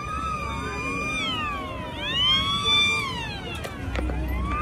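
Electronic siren sounding over street traffic: a held tone that slides down in pitch, sweeps back up about two seconds in, and falls again.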